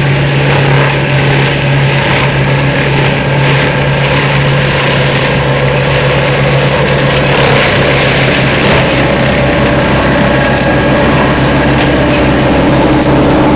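ASV RC100 tracked skid steer running steadily with a Seppi MiniForst hydraulic mulcher: a loud, even machine noise over a constant low engine hum, with short high ticks scattered through it.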